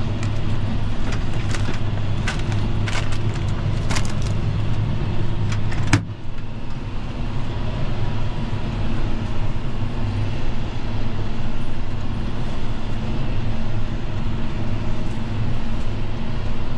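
John Deere tractor engine running steadily, heard from inside the cab, with light rattles and clicks over the first six seconds.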